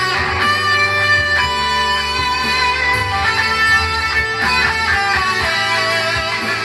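Electric guitar playing a lead line of held notes that ring out for about a second each before moving to the next pitch.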